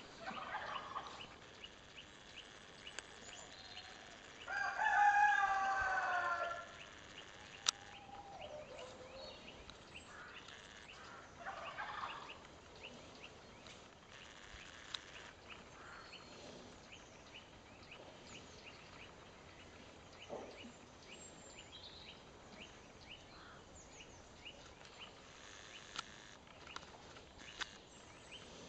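A rooster crows once, about four and a half seconds in, a pitched call of about two seconds that is the loudest thing here. A few weaker calls follow, and the rest is faint farmyard background with a quick, regular faint ticking.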